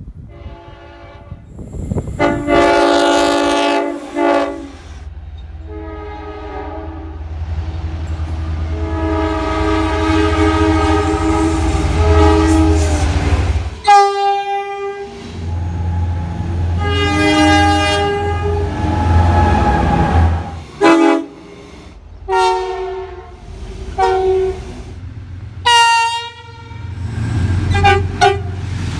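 Railroad locomotive air horns sounding in a string of spliced recordings: a long chord-like blast, several short toots and sequences of blasts, over the low rumble of passing locomotives and rail cars.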